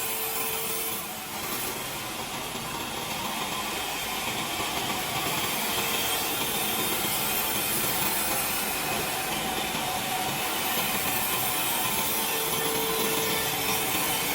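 Sawmill saw cutting through a timber log, a steady dense rasping noise that eases briefly about a second in and then runs on evenly.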